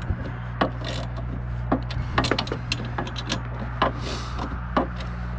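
A hand tool working a loose, backed-off screw tight: irregular sharp clicks and scrapes of metal on the fitting, over a steady low hum.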